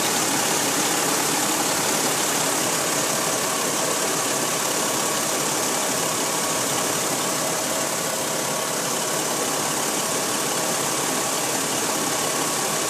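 Ford Freestar's V6 engine idling steadily with a fan running, heard as a constant hiss with a faint steady whine. The engine is warming up, waiting for the thermostat to open while the coolant system is burped of air.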